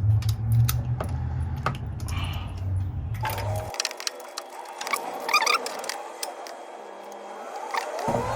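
Metal hand tools clicking and clinking, a socket, extension and ratchet, as a new spark plug is fitted into its well and tightened. Under the first half runs a low steady hum that stops abruptly a little under four seconds in.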